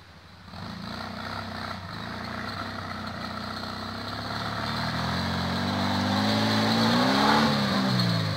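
Air-cooled flat-four engine of a VW Beetle-based off-road buggy revving hard under load on a steep dirt climb. It comes in about half a second in and grows louder, its pitch climbing and falling back as the throttle works.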